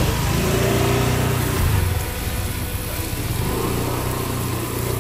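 A steady low engine hum under busy street noise.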